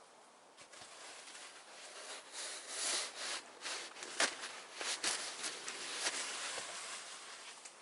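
Irregular crunching and scraping in snow, with a few sharp knocks, as snow is worked or trodden.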